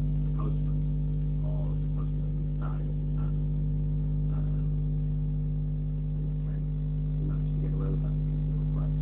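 A steady low hum, with faint, indistinct fragments of speech over it.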